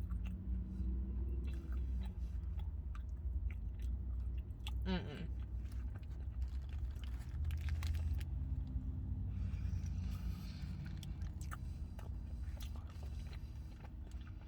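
Close-up chewing and biting of a chicken sandwich, with many small wet mouth clicks over a steady low hum. A short falling squeak comes about five seconds in, and a brief rustle around ten seconds in.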